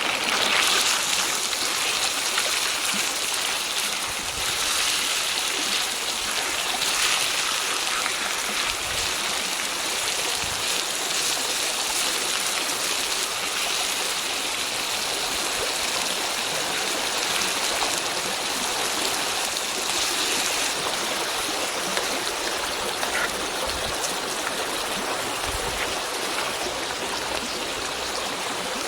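Stream water flowing steadily, an even rushing sound.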